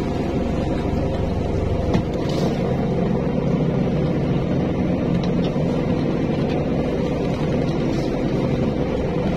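Fishing boat's engine running steadily, a constant low drone, with water washing along the hull.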